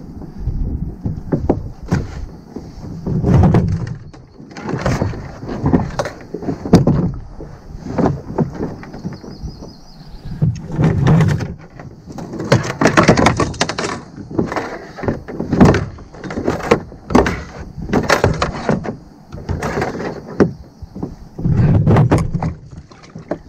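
Irregular knocks, thumps and scrapes on a plastic kayak deck as a large northern pike is handled there and lifted, with clusters of heavier thuds every few seconds.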